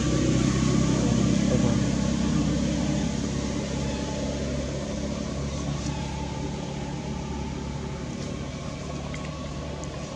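A steady low engine hum, loudest for the first two seconds or so and then slowly fading.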